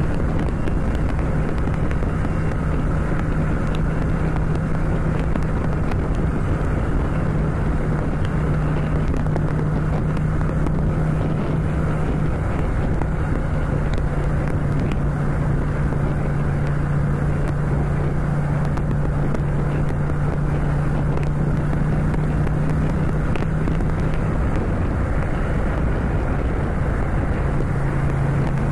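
Ducati Scrambler's L-twin engine running steadily in sixth gear at cruising speed, with wind noise over the microphone. Near the end the engine note drops slightly as the throttle eases.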